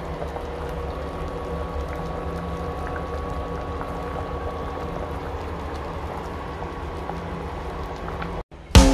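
Big pot of pork bulcachong soup at a rolling boil: a steady bubbling with a faint steady hum beneath it. Near the end it cuts off, and drum-led music comes in.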